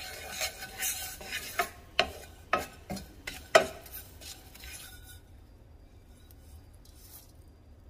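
Wooden spoon stirring and scraping broken cinnamon stick pieces as they dry-toast in a nonstick frying pan, with sharp knocks and scrapes about every half second. It goes much quieter after about four seconds, with only faint light sounds as the pieces are tipped into a metal bowl.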